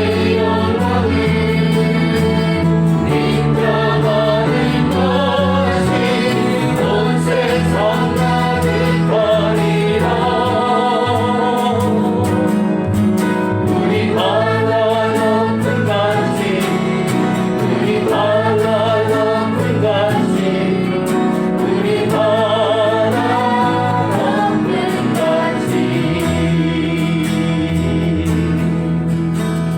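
A group singing a Korean praise song with live instrumental accompaniment, steady throughout.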